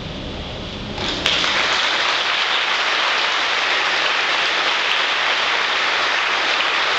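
Audience applause breaking out about a second in and continuing steadily after a choir has finished singing.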